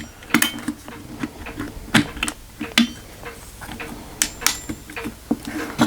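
Irregular light clicks and knocks of small rifle parts being handled as the halves of an air rifle's receiver are separated, with a few sharper taps about two seconds in and near the three-second mark.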